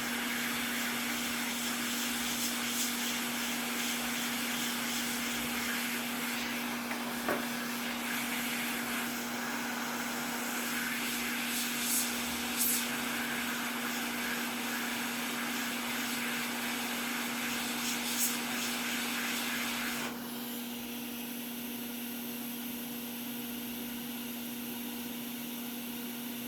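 Hot-air rework station blowing with a steady hiss over a constant fan hum while heating the solder on an HDMI port. The hiss drops to a quieter level about twenty seconds in, with a few faint clicks along the way.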